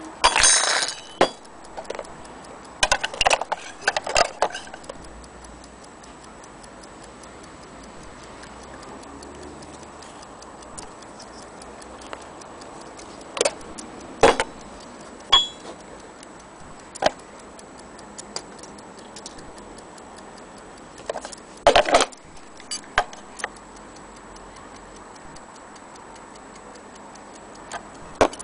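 Antique clock movement ticking rapidly and steadily, with louder, irregular clicks and knocks of brass clock parts being handled and set down on a wooden table and a plastic kitchen scale.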